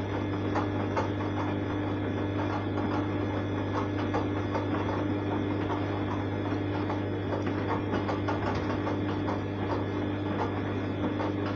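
Arçelik 3340 SJ front-loading washing machine in its wash phase: the drum motor runs with a steady hum while the wet, foamy laundry tumbles and sloshes in the drum. Small irregular clicks and splashes come through throughout.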